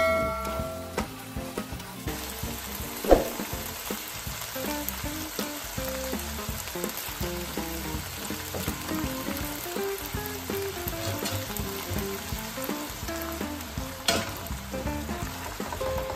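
Fusilli and broccoli sizzling in a hot frying pan while a spatula stirs them, with a sharp knock of the spatula against the pan about three seconds in. Faint music runs underneath.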